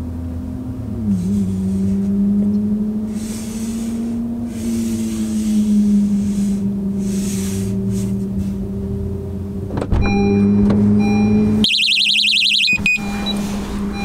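A steady low vehicle hum, then a single thunk just before ten seconds in. About twelve seconds in, the Technaxx TX-100 plug-in alarm's siren sounds for about a second in a fast, high warble, triggered by motion inside the car, then cuts off.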